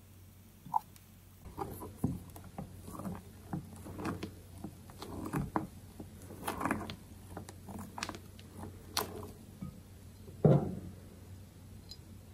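Silicone spatula stirring and folding thick egg batter in a glass bowl: irregular soft squelches and scrapes against the glass, with one louder knock about ten seconds in.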